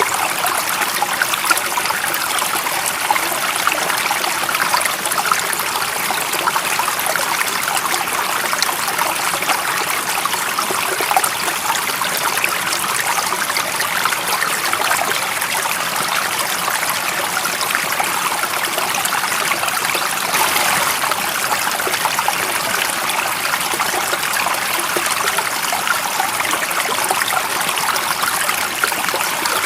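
Running water of a stream flowing steadily: an even, fine-grained splashing hiss, bright and without low rumble, unchanging throughout.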